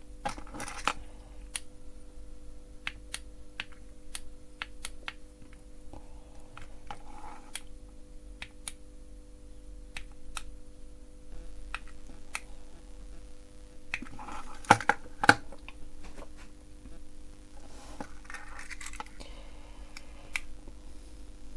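Scattered light clicks and rustling of small electronic parts being handled while a current-limiting resistor is changed, with a few sharper clicks about two-thirds of the way through. A faint steady hum runs underneath.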